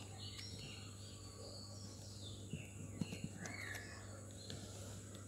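Faint handling of woven coconut-leaf strips being tucked into place, with a few soft taps about halfway through, over birds chirping in the background and a steady low hum.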